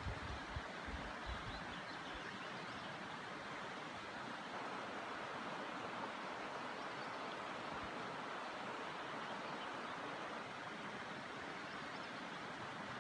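Steady rush of flowing river water, an even hiss without a break. A few brief low thumps come in the first second and a half.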